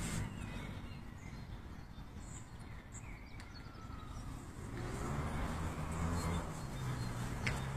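Outdoor park ambience: a low rumble that grows louder about five seconds in, with a few faint bird chirps and one short, sharp chirp near the end.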